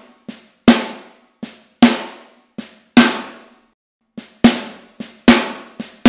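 Snare drum struck with a single stick in the left hand, in repeated pairs: a soft ghost note followed about half a second later by a loud accent that rings briefly. A ghost-note-then-accent control exercise, with a short pause about halfway through.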